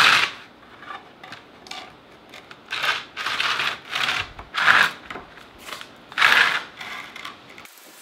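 Pressure-treated pine fence pickets sliding and scraping over a concrete floor as they are pushed into place, in several separate scrapes.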